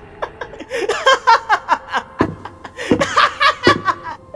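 A man laughing in a run of short, repeated chuckling bursts that swell into two louder spells, a villain's mocking laugh performed by a dubbing voice actor.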